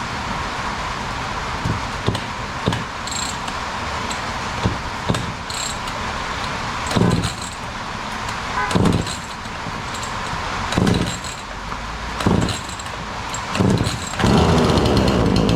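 An old Remington chainsaw's pull cord yanked about five times, one to two seconds apart, without the engine catching, over steady rain; the owner suspects a carburetor gummed up by ethanol gas. Near the end a louder, steady humming sound sets in.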